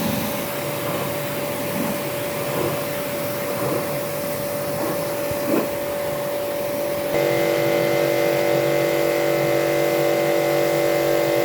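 A machine's motor running steadily, a hum of several held tones over a hiss. About seven seconds in, a second, louder set of steady tones joins in.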